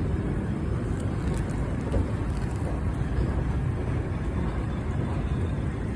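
ED4M electric multiple unit rolling in to the platform: a steady low rumble, with a few faint high squeaks a second or two in.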